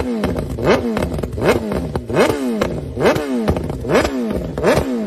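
Sport-bike inline-four engine with a straight-pipe exhaust, revved in quick blips: about six throttle stabs, each note climbing sharply and dropping back to idle, roughly every three-quarters of a second.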